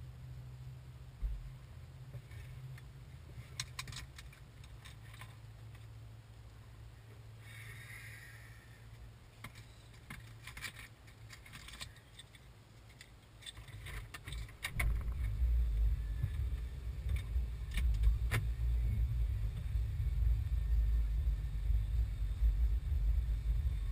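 Keys jangling and clicking in hand for several seconds. About two-thirds of the way in, a loud low rumble of the car's engine and road noise sets in inside the cabin and stays steady.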